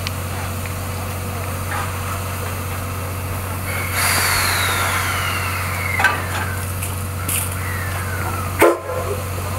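A railway turntable rotating with a steam locomotive on it, over a steady low hum. About four seconds in comes a burst of hiss with a long metallic squeal falling in pitch, then a second, shorter falling squeal, and a loud clunk near the end.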